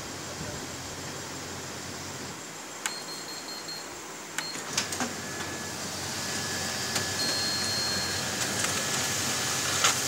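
Canon imageRUNNER 2520 copier starting a copy job: a few sharp clicks about three to five seconds in, then the feed motors run with a thin, steady high whine that grows louder as a sheet is fed through to the output tray.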